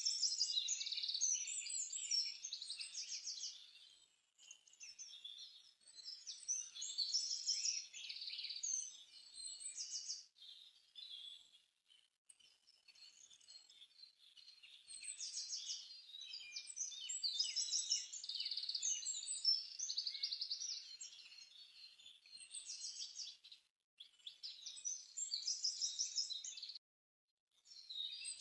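Small songbirds chirping and trilling in a dense, busy chorus of quick, high notes, coming in phrases with short lulls. The sound cuts out abruptly twice near the end.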